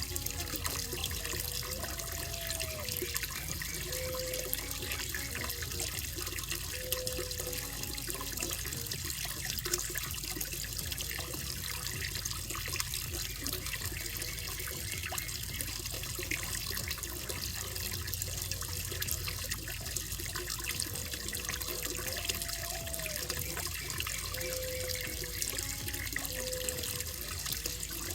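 Water running steadily into a koi pond, a continuous splashing trickle. Faint low whistled notes sound twice in the background, once near the start and again about 21 seconds in.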